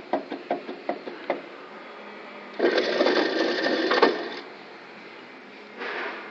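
Badly worn wheel hub bearing on a GMC Safari van, worked by hand with the wheel and caliper off: a quick run of clicks as the loose hub shifts, then a loud rattling grind for about a second and a half, and a shorter one near the end. The whole hub assembly has play, the sign of a failed hub bearing.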